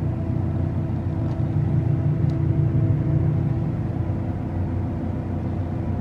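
John Deere S780 combine running, heard inside the cab as a steady low drone with a steady engine hum over it, swelling slightly in the middle, while the folding corn head unfolds.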